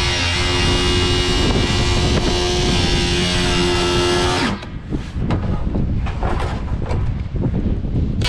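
Cordless angle grinder with a cut-off wheel running at speed as it cuts through a plastic drum. A little past halfway the sound dips briefly and turns rougher and more uneven.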